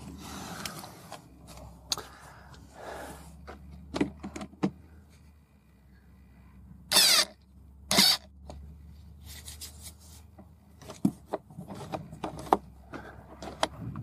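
Handheld cordless screwdriver driving in the screws of an RV door deadbolt, with two short whirs about seven and eight seconds in. Scattered light clicks and taps come from handling the lock parts around them.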